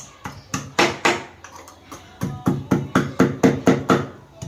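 Pestle pounding in a mortar, crushing cardamom: sharp knocks, a few irregular ones at first, then about two seconds in a steady run of about four to five strikes a second.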